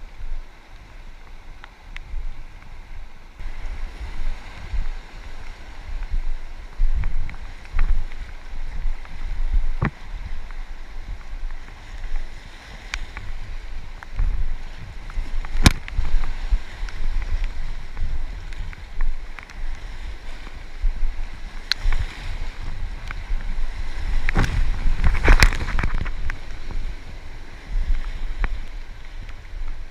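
River water rushing and splashing around an inflatable kayak, with wind buffeting the microphone. A few sharp knocks stand out, the loudest about three-quarters of the way through.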